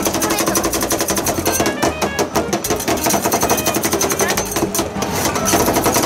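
A rapid, steady mechanical rattle from a small running motor, continuous throughout.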